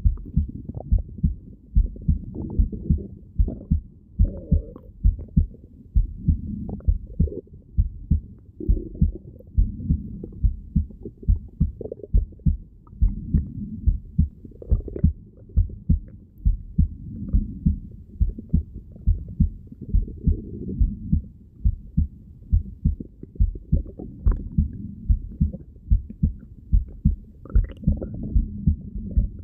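Heartbeat heard through a stethoscope: a steady run of low double thumps, with soft stomach gurgles between the beats.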